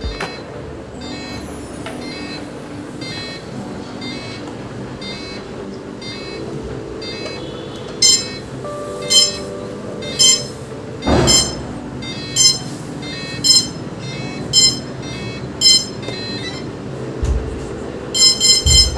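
Background music: sustained synth chords, joined about halfway through by a bright beeping note about once a second, with a quick run of beeps near the end.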